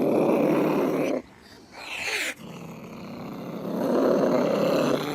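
Domestic cat growling: a low rumbling growl, broken after about a second by a short cry that falls in pitch, then a second long growl.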